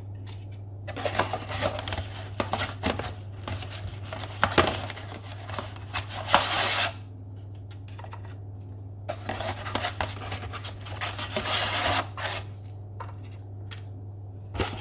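Dry lasagna pasta sheets being handled and laid into a dish: crackly rustling and scraping with small sharp clicks, in two spells a few seconds long, over a steady low hum.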